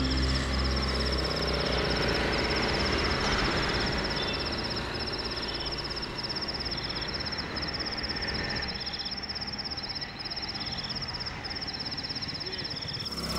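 Crickets trilling in a steady, fast pulsing chorus, with shorter chirping trills coming and going, over a continuous hiss of night-time background noise.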